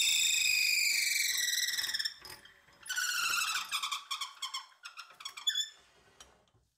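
Twist drill bit squealing as it bores into the end of a wooden handle spinning on a wood lathe: a high whistling squeal that slides slowly down in pitch. It breaks off about two seconds in, returns lower about a second later, and dies away in short chirps near the end as the bit comes out of the hole.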